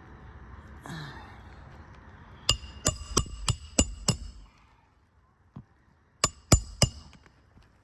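A hammer driving roofing nails into a shingle: a quick run of about six sharp, ringing strikes, then after a short pause three more.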